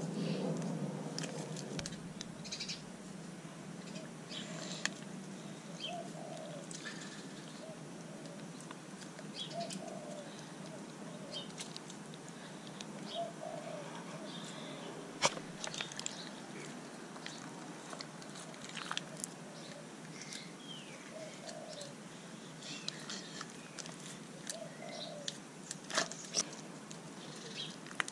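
Hands squeezing and stretching glittery slime full of beads: sticky squishing with many small scattered clicks and pops, and short low tones every few seconds.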